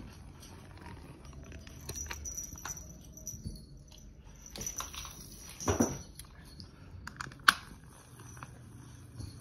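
Scattered light knocks, rustles and clicks from a fishing-rod cat toy being swung and a kitten chasing its feather lure across a wooden floor. There is a louder clatter just before the middle and a single sharp click about two seconds later.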